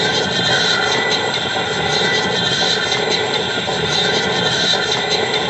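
Harsh-noise music: a loud, dense, unbroken wall of hiss and rumble with a few faint held tones under it.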